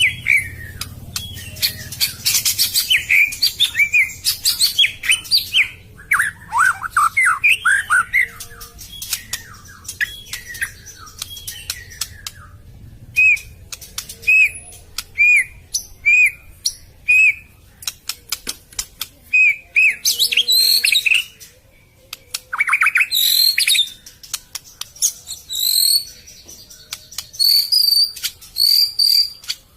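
White-rumped shama (murai batu) singing a varied song: rapid chattering phrases and falling sweeps, then a run of clear whistled notes about one a second, and near the end a string of higher repeated notes.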